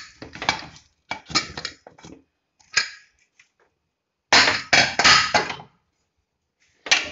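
An aluminium Usha Shriram pressure cooker being opened after its pressure has dropped: metal clanks and scrapes of the lid being twisted free, lifted and handled, in short clusters, with the loudest run of clatter a little past the middle.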